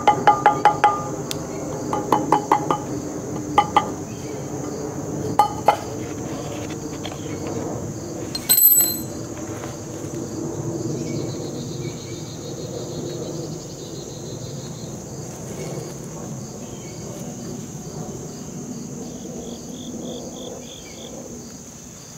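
Sharp metallic taps from a metal hand tool worked against the wooden sand-casting flask: a quick run of about six right at the start, then a few scattered ones over the next several seconds. A steady insect chirring carries on underneath.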